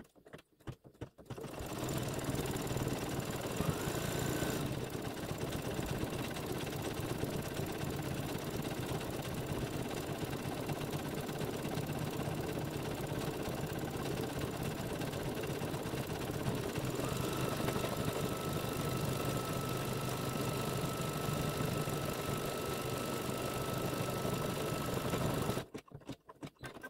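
Embroidery machine sewing a satin-stitch edge, a steady fast rattle of the needle. It starts about a second and a half in and stops shortly before the end, as that section of satin stitching finishes.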